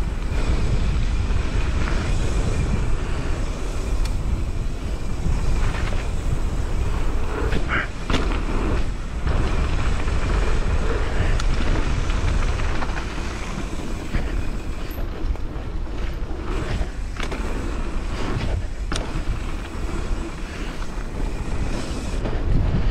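Wind rushing over the microphone and a mountain bike's tyres rolling over a gravel trail at speed, with knocks and rattles from the bike hitting bumps, several sharp ones scattered through the run.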